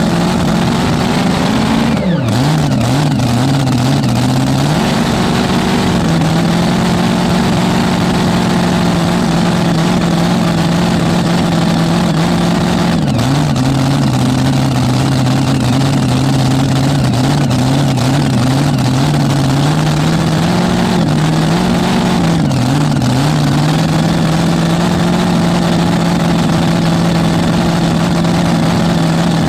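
Supercharged engine of a mini rod pulling tractor idling loudly. Its speed shifts up and down a few times, about two seconds in, near five seconds, near thirteen seconds and again around twenty-one to twenty-three seconds.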